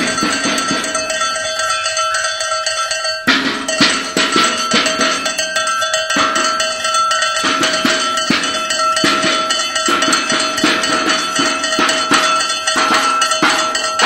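A metal bell shaken continuously: rapid, irregular clanks over a steady ringing tone, with a brief break about three seconds in.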